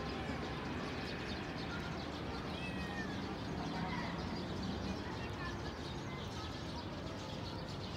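A cat meowing in a few short calls near the middle, over steady outdoor background noise.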